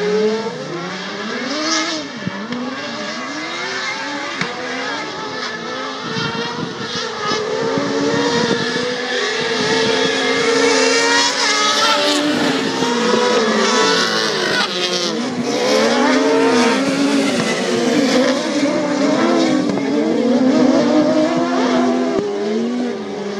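Several autocross race cars racing on a dirt track, their engines revving up and falling back over and over as they shift gears through the corners. The engine note grows louder about a third of the way in.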